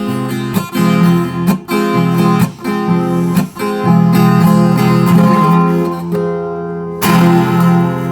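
Acoustic guitar playing the closing bars of a song: a run of strummed chords, then a chord left ringing, and a final chord struck near the end and let ring.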